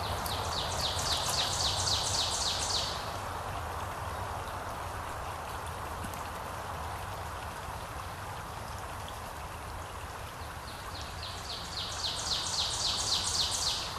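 A songbird sings twice, each time a quick run of about ten high, repeated notes lasting two to three seconds, over a steady hiss of water.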